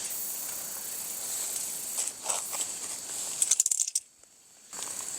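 Steady high-pitched buzzing of insects in the forest, with light rustling and a few sharp clicks from handling; the sound cuts out briefly about four seconds in.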